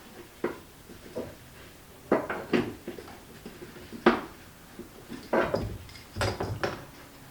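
Hard plastic interior trim parts being handled and fitted together: a series of short clicks and knocks, several in quick clusters, with quiet between them.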